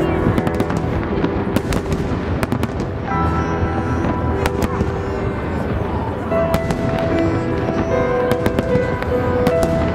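Festive fireworks salute going off in a rapid, irregular run of sharp cracks and bangs, several a second, over music with held notes.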